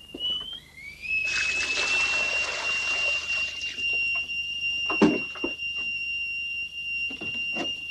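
Stovetop whistling kettle at the boil: a high, steady whistle that climbs a little in pitch as it starts and then holds. Water runs for the first few seconds, and there are a few sharp knocks of kitchenware, the loudest about five seconds in.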